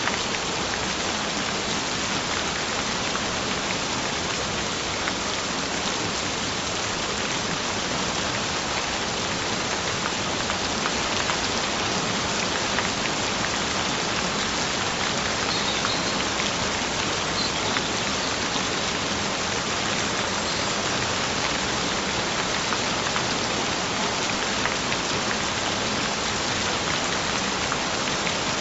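Gentle rain falling steadily, an even patter of drops with no letup.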